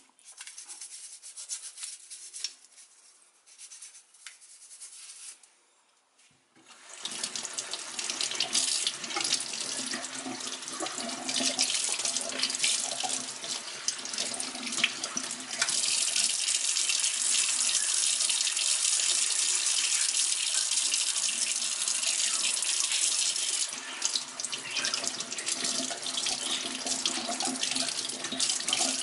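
Short, broken rubbing sounds, then, about seven seconds in, water starts running from a tap. The flow gets louder and steadier about halfway through.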